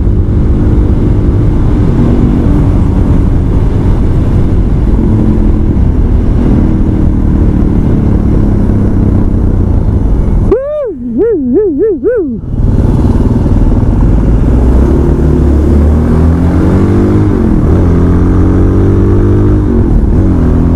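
Motorcycle engine running under way with wind rush, its pitch rising and falling through revs and gear changes in the second half. About ten seconds in, a loud warbling tone that wavers up and down in pitch cuts in for about two seconds while the wind noise drops away.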